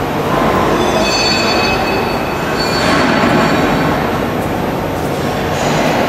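Loud steady industrial machinery noise, a dense rushing hum, with several thin high squealing tones from about one to three seconds in.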